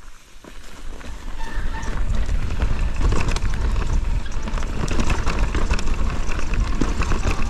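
Mountain bike riding fast down a dirt trail: wind buffeting the camera microphone, tyres rumbling over the ground and the bike clattering over rough spots. The noise builds over the first second or so as speed picks up, then holds steady.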